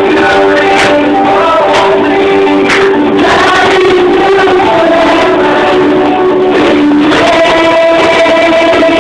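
A group of children singing a praise song together with instrumental backing.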